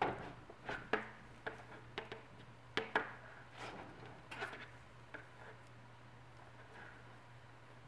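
Knitting needles clicking against each other as stitches are worked: about a dozen light, irregular clicks over the first five seconds, thinning out after that, over a steady low hum.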